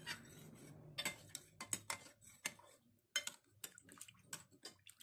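A ladle stirring coconut milk in a glass saucepan, giving irregular light clinks and taps against the pot's side.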